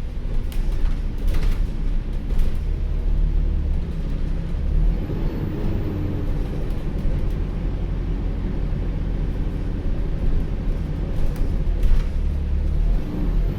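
ADL Enviro400H City hybrid double-decker bus heard from inside while on the move: a steady low rumble with a humming tone through the middle, and a faint high whine that rises and falls around the middle and again near the end.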